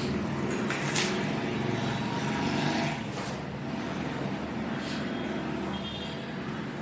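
A steady low motor hum, with a few light clicks and short clinks over it.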